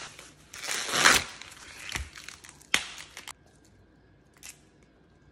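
Green husks being torn off an ear of fresh sweet corn: a long ripping rustle about a second in, then a dull thump and a few shorter crackling rips.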